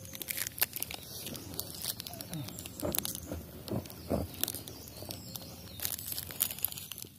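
Scattered crackling and rustling clicks, like handling or movement noise, with faint voices in the background now and then.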